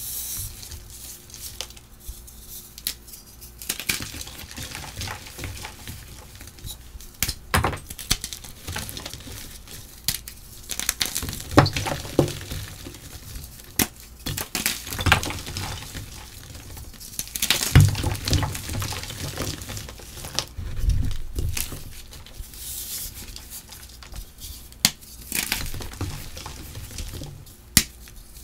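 Black charcoal chalk blocks, dusted with glitter, being pressed and crumbled by hand in a bowl: dry crunching and crackling, with a few sharper cracks as pieces snap off.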